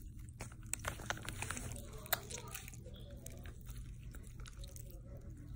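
Hands squeezing and kneading jiggly slime: soft wet squishing with clusters of small sticky pops and clicks, busiest in the first three seconds and thinning out after.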